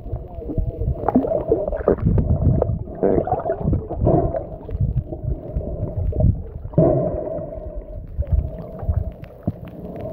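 Muffled underwater noise picked up by a smartphone's microphone held under the sea: low rumbling and irregular knocks and gurgles of water moving against the phone, with a steady hum underneath.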